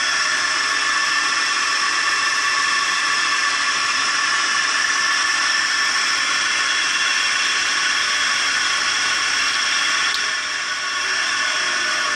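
Three-phase induction motor driven by a LUST frequency inverter, running steadily with a high multi-tone electrical whine over the whir of the spinning shaft, the whine typical of a motor fed by an inverter. A brief click about ten seconds in, after which the level dips slightly and recovers.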